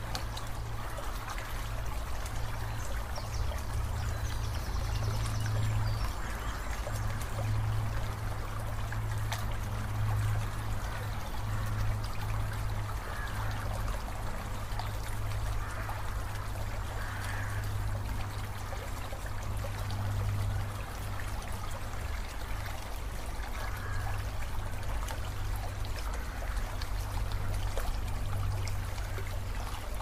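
Shallow rocky river flowing and trickling steadily, with a constant low rumble underneath.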